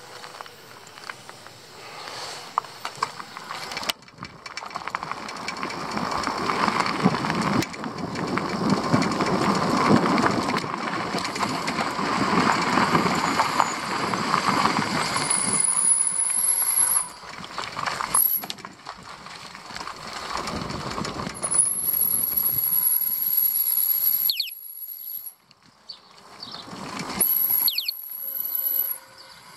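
Bicycle rolling over rough ground and pavement, its front basket and frame rattling. A thin, high-pitched brake squeal sounds several times in the second half as the rider brakes on the descent.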